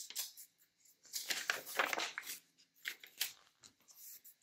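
Paper pages of a paperback book rustling as a page is turned by hand: a few short, dry rustles, the longest about a second in.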